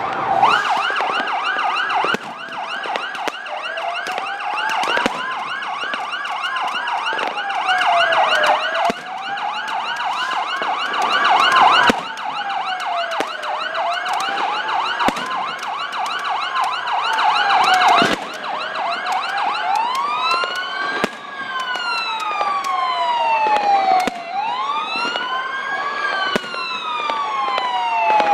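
Several fire engines' electronic sirens sounding together: a fast yelping tone over slower rising-and-falling wails. The yelp stops about two-thirds of the way through, and faster swooping wails take over. Sharp firework bangs go off throughout.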